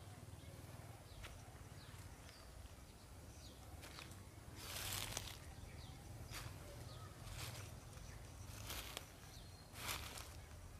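Faint footsteps on dry leaves and dirt, a step roughly every second starting about halfway in.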